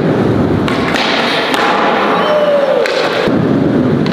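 Skateboard wheels rolling across a concrete floor in a steady rumble, with a few sharp knocks along the way.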